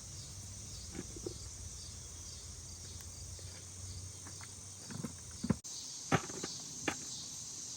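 Steady high insect chorus, with a few sharp knocks in the second half.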